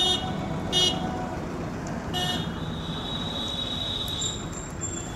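Street traffic with high-pitched vehicle horns: two short toots in the first second, then a third that runs on into a longer held horn note for about two seconds.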